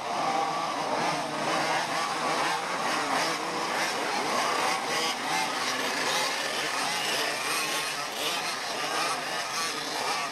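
A pack of two-stroke racing go-kart engines running together at high revs, many overlapping pitches rising and falling as the karts race past.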